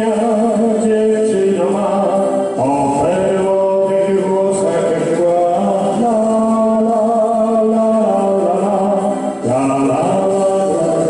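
Music: a slow song with long held melody notes over a backing track, a man singing into a microphone.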